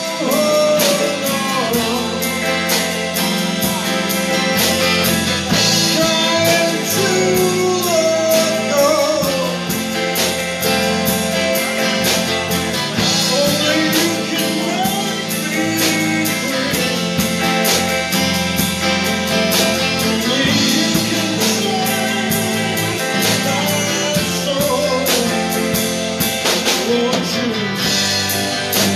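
Live blues band playing: electric guitars, bass guitar and a drum kit keeping a steady beat.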